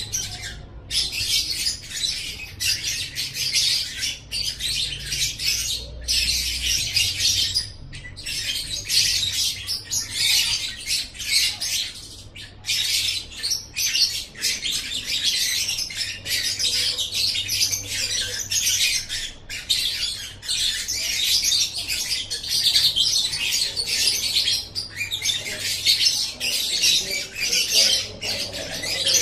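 A lovebird singing its 'ngekek': a long, rapid, high-pitched chattering song that runs on in long stretches with only brief breaks.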